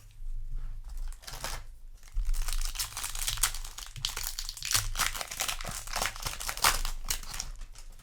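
Foil wrapper of a Yu-Gi-Oh! booster pack being torn open and crinkled by hand, the crackling getting louder about two seconds in.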